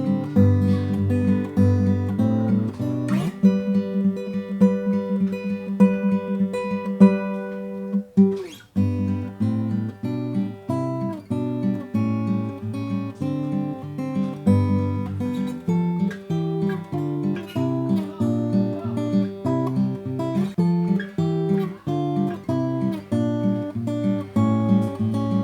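Yamaha FG-720 acoustic guitar, spruce top with mahogany back and sides, played through a run of changing chords and notes, with a short pause about eight seconds in.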